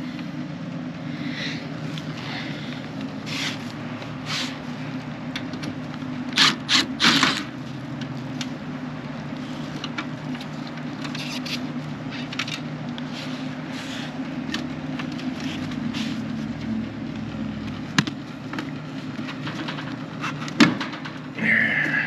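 Clicks, knocks and scrapes of plastic and sheet-metal parts as the tabs of a Mitsubishi mini split outdoor unit's control-board housing are pushed and lifted to take it apart, with a quick cluster of clicks about six to seven seconds in and single sharp clicks near the end. A steady low hum runs underneath.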